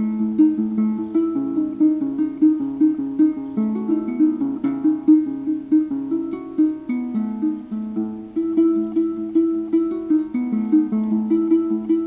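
Ngoni, a West African plucked lute with a gourd body, being played in a quick repeating pattern of plucked notes.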